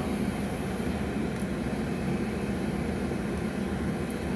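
Steady rumble and hiss of an automated tunnel car wash's machinery, heard from inside the car as it is pulled through the wash.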